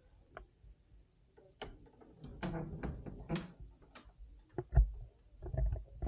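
Footsteps on a wooden floor and camera handling: irregular knocks and rustles, with a few heavy low thumps from about two thirds of the way through.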